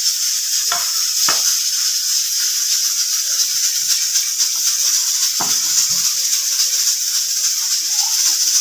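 Steel ladle stirring vermicelli into boiling milk in a steel pot, clinking against the pot three times (twice near the start, once about halfway), over a steady high hiss.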